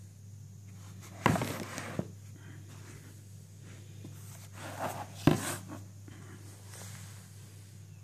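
Handling noise: two sharp knocks, about a second in and just past five seconds, each followed by a brief rustle, with a smaller click in between, over a low steady hum.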